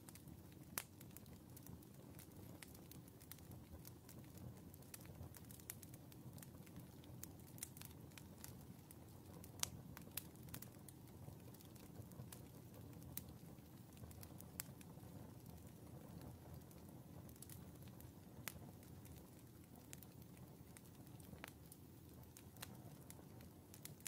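Split logs burning in a wood stove's open firebox: a faint low rumble of flame with scattered sharp crackles and pops throughout, the loudest pop about ten seconds in.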